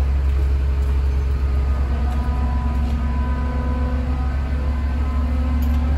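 Steady low mechanical rumble with faint steady hum tones above it.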